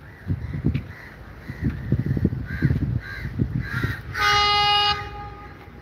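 Crows cawing repeatedly over low bumps and rumbles from the phone's microphone as it is carried. About four seconds in, a train horn sounds once for nearly a second on a single steady note, the loudest sound.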